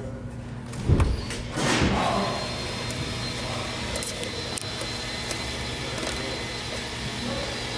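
Hand work on a braided ABS line under a van's front suspension: a heavy thump about a second in, then a short scraping rustle, over a steady low hum and a few small clicks.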